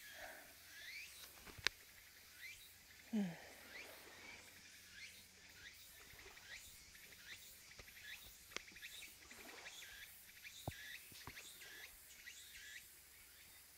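Faint outdoor ambience of birds chirping, with many short high chirps that slide in pitch. A louder, lower call falls in pitch about three seconds in, and there are a few sharp clicks.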